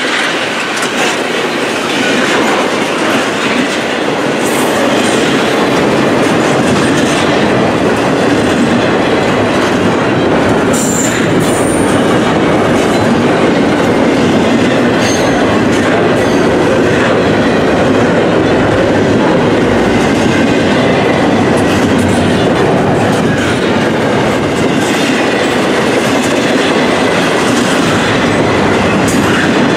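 Double-stack intermodal well cars loaded with containers rolling past close by: a loud, steady rumble and clatter of steel wheels on the rail, with a few brief high wheel squeals.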